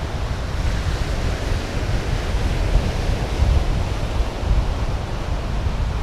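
Wind buffeting the microphone with an uneven low rumble, over the steady hiss of surf on the beach.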